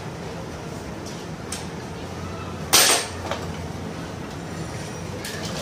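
Metal parts being handled on a workbench: a few faint clicks and one short, sharp metallic clatter about three seconds in, over a low steady hum.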